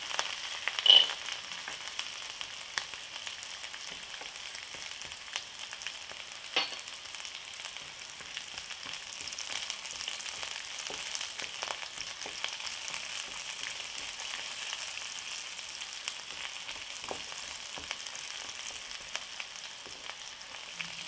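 Cashews frying in hot oil in a kadai among sautéing vegetables: a steady sizzle, with a wooden spatula stirring. About a second in comes a sharp clink as the cashews are tipped in from a small steel bowl, then a few light knocks.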